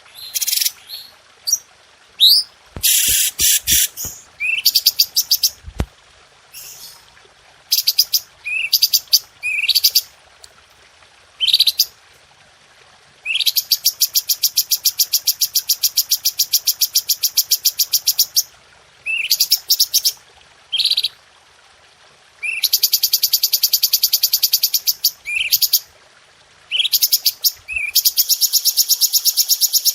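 Cucak cungko singing: short rising whistled notes broken by long, very fast, sharp rattling trills. These rapid-fire 'shots' are the prized dense volleys of a training song, and the longest lasts about five seconds.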